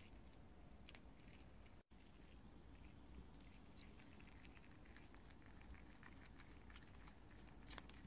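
Prairie dogs eating fresh grass: faint, irregular crisp crunches and clicks of chewing and nibbling. The sound drops out completely for a moment about two seconds in.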